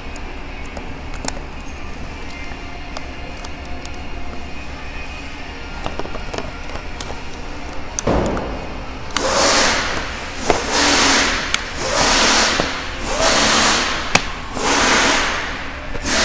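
Small clicks of a plastic seat side trim panel being handled and fitted. From about nine seconds in, a louder rhythmic swishing takes over, about one stroke a second, from a source not shown.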